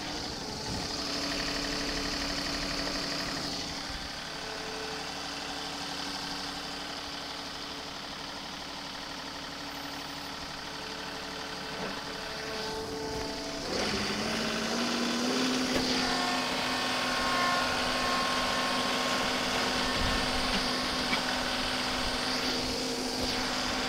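John Deere 2-series compact tractor's three-cylinder diesel engine running steadily while pulling a box blade with its scarifiers down through partly frozen ground. About two thirds of the way through the engine speeds up and gets louder, then holds at the higher speed.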